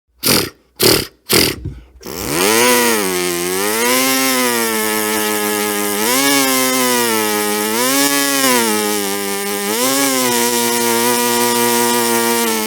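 A person imitating a small engine with the voice: three short rasping pulls, then the engine catches about two seconds in and runs, revving up and dropping back about every two seconds before cutting off suddenly.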